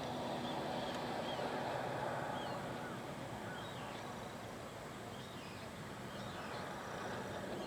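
Outdoor waterside ambience: a steady low rushing haze, easing slightly partway through, with faint high bird chirps scattered through it.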